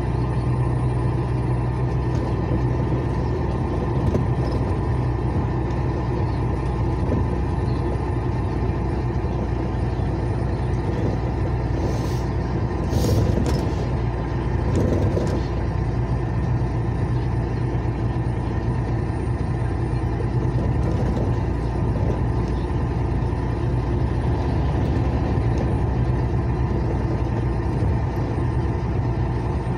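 Steady engine drone and tyre noise heard from inside a moving vehicle's cab on a wet highway, with a few short hisses about halfway through.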